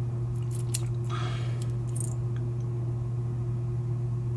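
A few light clicks and a short scrape from a key and lock being handled, over a steady low hum.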